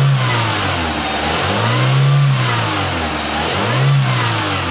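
Toyota Tercel engine running and being revved, its pitch swelling up and falling back about every two seconds. It runs again on a newly fitted ignition coil: the no-start was caused by a weak coil.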